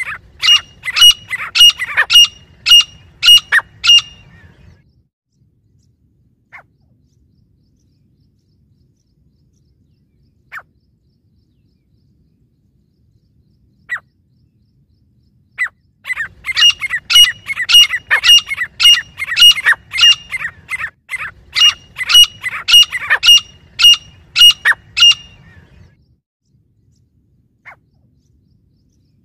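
Francolins (teetar) calling: loud, shrill calls repeated about twice a second for around four seconds. After a lull with a few single notes, a second, longer bout of about nine seconds follows, then one last single note near the end.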